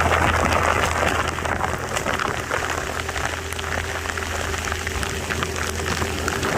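Rain falling steadily, with dense patter of drops and a steady low hum underneath.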